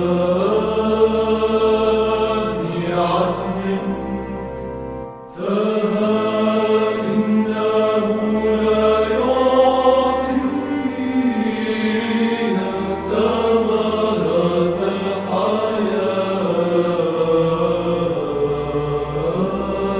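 Arabic church hymn chanted in a slow melodic line over a low held drone note, with a short break between phrases about five seconds in.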